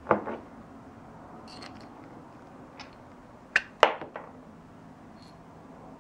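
A handful of short, sharp metallic clicks and knocks as a hole saw and a small steel tool are handled to push out the wood plug. Two come right at the start and a quick cluster of three about three and a half seconds in, the middle one the loudest.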